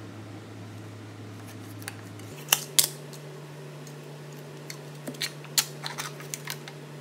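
A plastic cream cheese tub being opened: two sharp plastic clacks about two and a half seconds in, then a run of short crinkles and clicks as the foil seal is peeled back, over a steady low hum.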